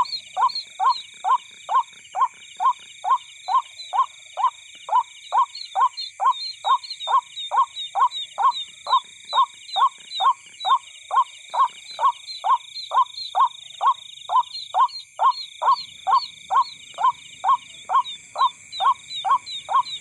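An animal call, a short downward-sliding note, repeated very steadily about two and a half times a second, over a constant high-pitched insect drone with faint high chirps.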